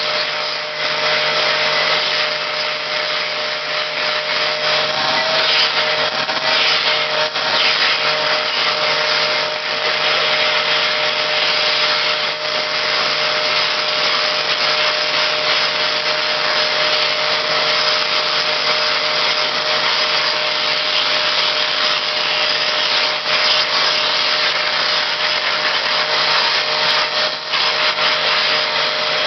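Vacuum cleaner running steadily with a constant whine, its nozzle being drawn over a cat's fur. A few brief rubbing scrapes come and go.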